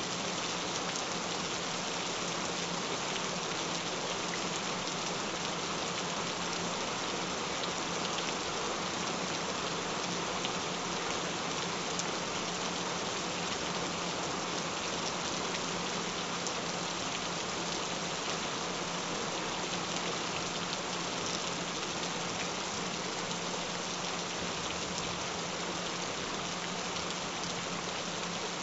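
Steady rain: an even hiss of falling drops on a surface, with a low steady tone underneath.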